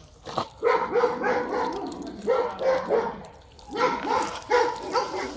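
A dog barking in short repeated bursts, several calls in quick succession in each burst.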